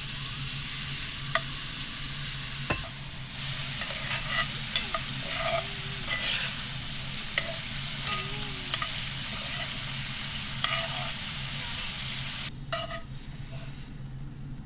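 Shrimp sizzling in a hot cast-iron pan, a steady sizzle scattered with sharp crackling pops. The sizzle drops off near the end.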